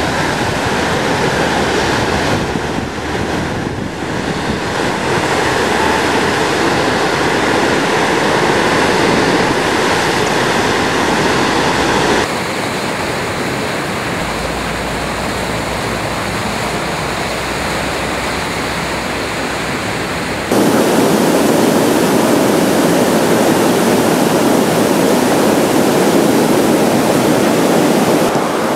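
Roar of river whitewater rapids, steady churning water. Its tone and loudness shift abruptly twice, about twelve and twenty seconds in.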